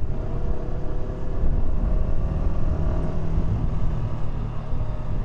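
Yamaha R125's single-cylinder four-stroke engine running steadily at cruise through its stock exhaust, heard under a heavy low rush of wind on the microphone while riding.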